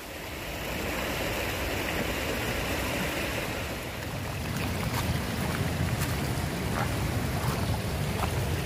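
Rushing river water, a steady hiss. A low rumble joins about halfway, with a few light clicks near the end.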